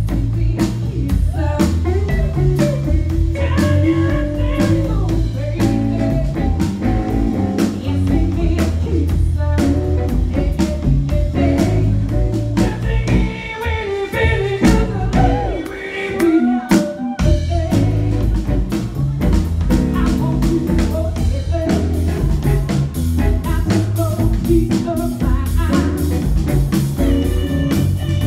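Live blues-rock band: a woman belting a vocal over electric guitar, bass and drum kit. The bass and drums drop out briefly about sixteen seconds in, leaving the voice and guitar, then the full band comes back.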